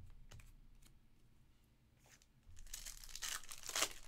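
Plastic foil wrapper of a Panini Select basketball card pack being torn open by hand: a few light handling ticks, then a crinkling rip about two and a half seconds in, loudest just before the end.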